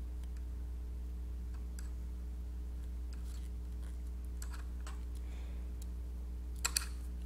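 Small clicks and taps of hands working a metal needle through the woven end of a paracord bracelet, with two sharper clicks close together near the end, over a steady low hum.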